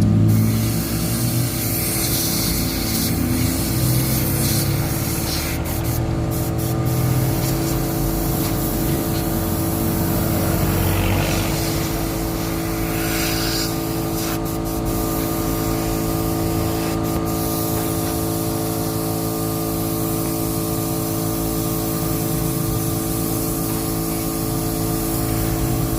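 Paint spray gun hissing in several bursts over about the first half, over a steady machine hum that runs throughout.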